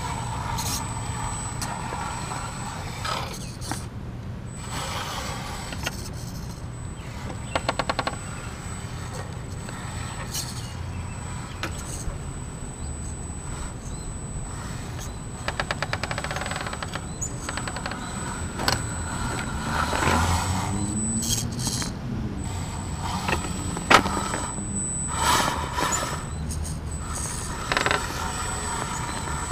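Electric RC rock crawler's motor and gear reduction drivetrain whining as it crawls over rocks, the pitch rising and falling with the throttle. Tyres scrape on stone and the chassis knocks against the rocks, with two short rapid rattles and one sharp knock about 24 seconds in.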